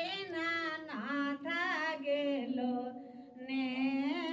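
A woman's voice singing a devotional song, with long held notes that waver in pitch and a short break about three seconds in.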